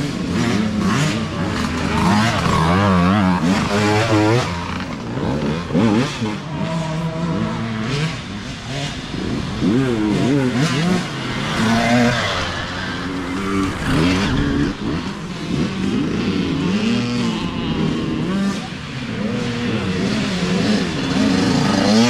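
Youth dirt bike engines revving up and down repeatedly as several bikes ride past one after another, their pitch rising and falling with the throttle.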